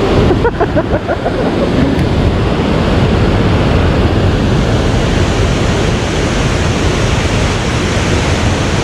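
Wind buffeting the microphone outdoors: a loud, steady rushing noise, heaviest and most flickering in the low end, that drowns out everything else.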